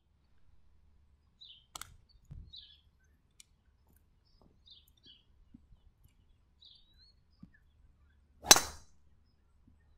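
A golf driver's clubhead striking the ball once, a single sharp crack about eight and a half seconds in. Faint bird chirps come and go in the background.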